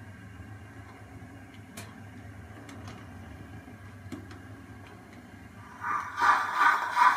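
H0-scale model railbus running over the track, a low steady hum with a few faint clicks. About six seconds in, much louder rhythmic music starts abruptly.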